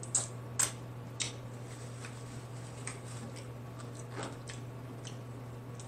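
Close-miked eating sounds: a handful of short, soft smacks and clicks from lips, fingers and crab shell, spaced unevenly, over a steady low hum.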